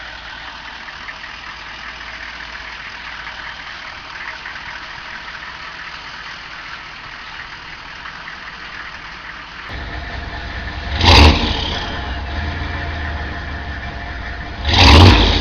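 Chevrolet 6.5-litre turbo-diesel V8 idling through a single 5-inch smokestack, getting louder about ten seconds in. It is then revved sharply twice, about four seconds apart, and each blip is followed by a falling turbo whistle.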